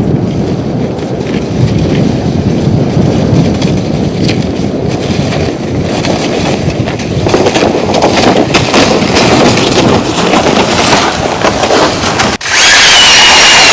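Loud, uneven low rumble of wind buffeting the microphone in a snowstorm. About a second before the end it cuts off sharply and music starts.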